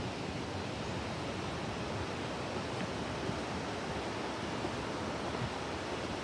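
Steady rushing of a fast mountain creek running through the canyon below, an even hiss without a break.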